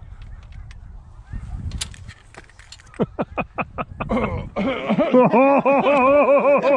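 Hand-blown goose call worked fast by a hunter: a few sharp clucks about three seconds in, then a loud, steady run of honks about five a second. Wind rumbles on the microphone before the calling starts.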